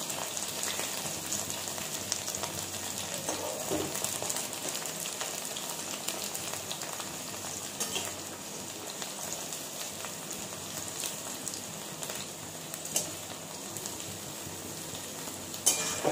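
Cut okra frying in oil in a steel kadai: a steady sizzle with fine crackles, and a couple of knocks of the metal spatula against the pan near the end.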